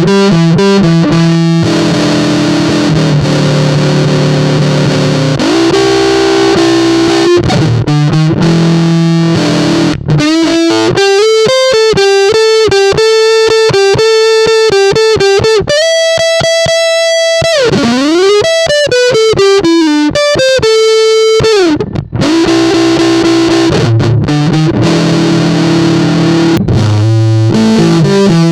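Electric guitar, a Squier Vintage Modified Jazzmaster, played through a Big Muff–style fuzz pedal with the gain turned high, in rhythm-and-blues licks. Chords for about the first ten seconds, then a single-note lead run with fast repeated notes, a held high note and a sliding descent, and chords again near the end.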